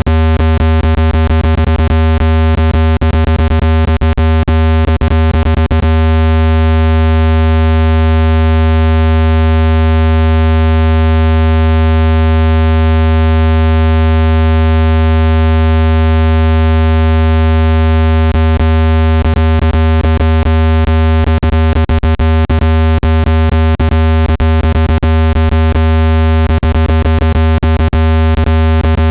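Loud, steady low-pitched electronic tone with many overtones, a synthesized water-eject sound meant to shake trapped water out of a phone speaker. Rapid clicks run through it for the first several seconds and again through the second half.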